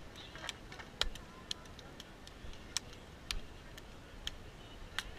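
A run of sharp hand slaps from a line of high fives, about ten, irregularly spaced.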